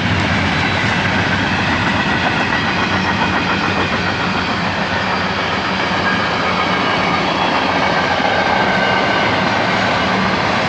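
Freight train cars rolling past close by: a loud, steady rush and rattle of steel wheels on the rails, with faint high-pitched ringing tones over it.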